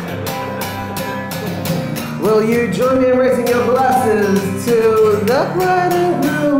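Acoustic guitar strummed in steady chords, with a man's singing voice joining about two seconds in.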